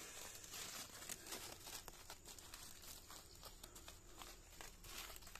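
Aluminium foil crinkling faintly as gloved hands unwrap a foil-baked sweet potato, with irregular small crackles throughout.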